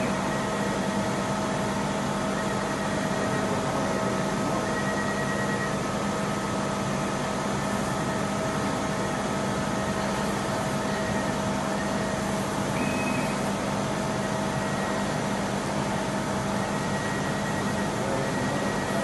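Dual-head fabric laser cutting machine running: a steady mechanical hum with a constant low drone, and short high-pitched whines now and then.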